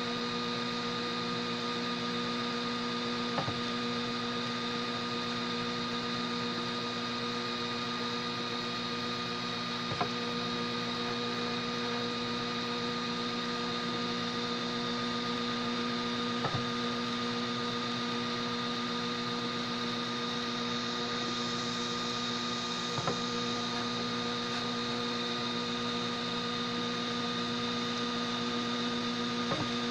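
Homemade 3D printer running mid-print: a steady hum made of several steady tones. A faint click comes about every six and a half seconds.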